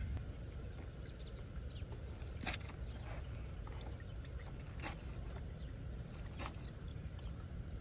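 Steady low rumble of wind on the microphone, with a few faint clicks spread through.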